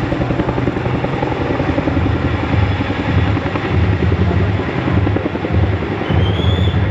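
Boeing CH-47 Chinook tandem-rotor helicopter passing low and close, the rapid thudding of its rotor blades over the noise of its turbine engines. A short rising whistle sounds near the end.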